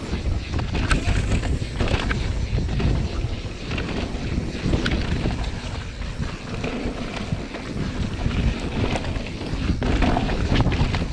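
Wind rushing over the microphone as a mountain bike rides fast down a dirt and gravel trail, with a steady low rumble. Tyres crunch over the gravel and the bike rattles in frequent sharp clicks.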